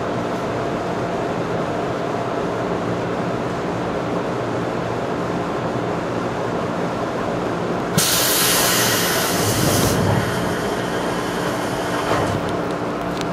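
Running sound inside a JR 211 series electric train at low speed: a steady hum with a few held tones. About eight seconds in, a loud hiss of compressed air lasts about two seconds, and there is a brief click near the end.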